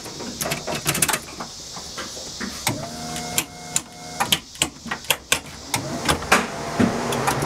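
Quick metallic clicks and clatter. About three seconds in, an electric fuel pump whines for about a second and a half as it primes, spinning up and then cutting off. A low steady hum starts near the end.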